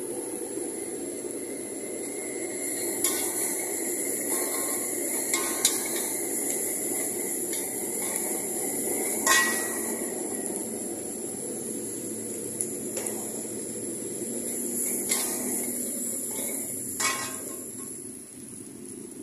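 Metal spatula scraping and clanking against a steel wok as noodles are stir-fried, over a steady frying hiss. Several sharp clanks come at uneven intervals, the loudest about nine seconds in.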